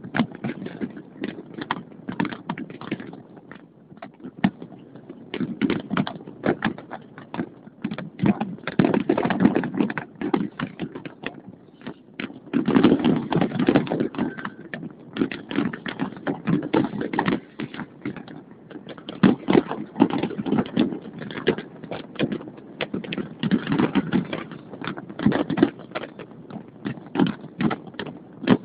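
Fireworks going off in every direction through a phone microphone: a nonstop rattle of pops and bangs that thickens into dense crackling runs several times.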